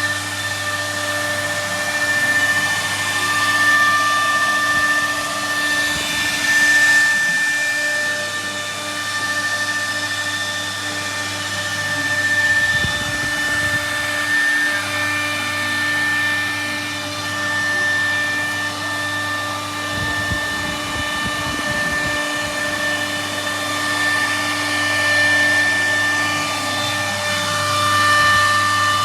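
CNC router spindle running at high speed and milling wood, a steady whine of several held tones over the hiss of the cut.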